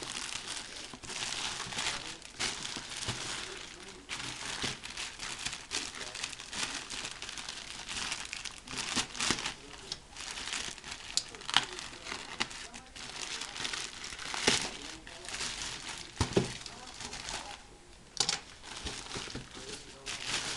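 Parcel packaging crinkling and rustling as it is unwrapped by hand, with irregular sharp crackles throughout.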